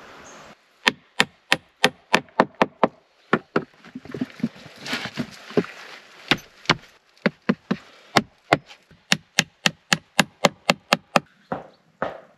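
A hand tool striking wood in quick, regular blows, about three to four sharp knocks a second, with a short break in the middle filled by softer scraping noise.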